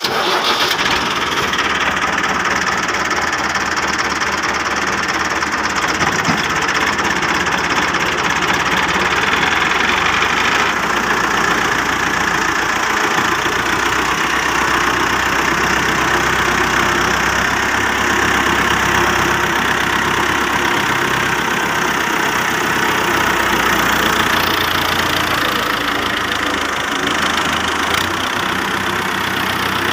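New Holland 640 tractor's diesel engine running steadily, heard close up.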